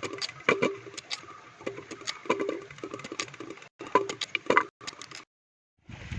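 Knife cutting peeled tapioca root into medium chunks: a run of irregular sharp knocks and taps. The sound drops out to silence near the end, and wind noise follows.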